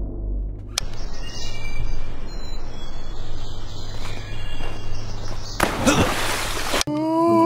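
Outdoor nature ambience of birds chirping and insects over a low hum. Near the end a loud rushing burst of noise lasts about a second, cut off sharply as music with plucked strings begins.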